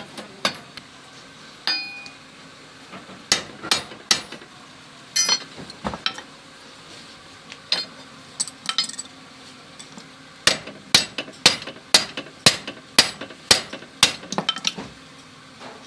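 Hammer blows on metal during wheel bearing work, with a short ring after each strike. A few scattered blows come first, then a steady run of about nine strikes, roughly two a second, in the last five seconds.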